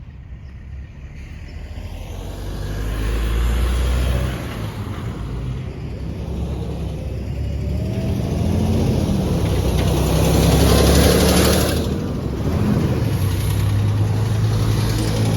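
Volvo B7RLE bus's six-cylinder diesel engine pulling under load. It builds in loudness, with a brief drop about four seconds in and another about twelve seconds in, where the ZF automatic gearbox changes up. The uploader says the engine has bad injectors.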